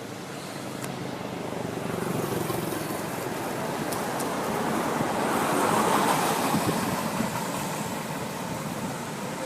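A road vehicle passing by, its noise growing louder to a peak about six seconds in and then fading.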